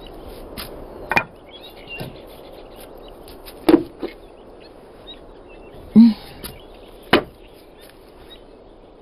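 Several sharp wooden knocks over a faint steady hiss. Four louder ones fall a second or two apart, with a few lighter taps between them.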